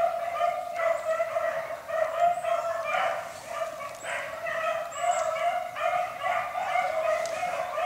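Pack of beagles baying continuously while running a rabbit: a steady, overlapping chorus of hound voices that swells and fades in level.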